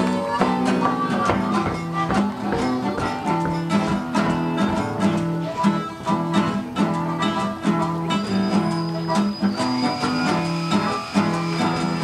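Background instrumental music led by quickly picked acoustic guitar over a steady, repeating bass line. A long high held note comes in about two-thirds of the way through.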